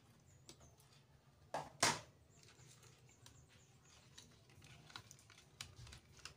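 Two sharp knocks a little under two seconds in, then a spoon stirring seasoning in a small plastic bowl: light, irregular clicks and scraping.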